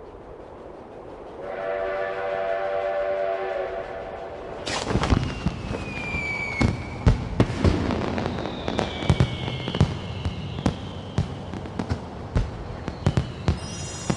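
A steam train whistle sounds a steady chord for about two and a half seconds over low rumbling. About five seconds in, fireworks take over: repeated sharp bangs, whistling rockets gliding down in pitch, and crackling bursts.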